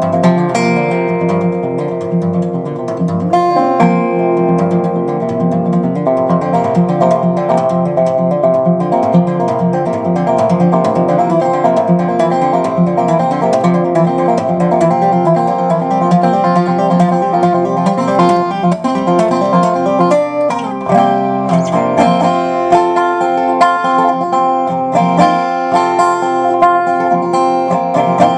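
Resophonic guitar played solo: an instrumental piece of many plucked notes over a steady low bass note.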